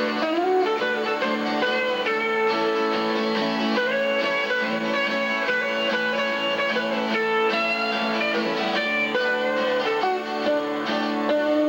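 Acoustic and electric guitars playing an instrumental passage: chords under a single-note lead line, with some notes bent or slid in pitch.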